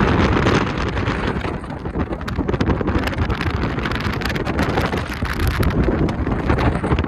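Wind buffeting the microphone: a loud, continuous low rumble broken by constant crackling, with the gusts easing a little about two seconds in.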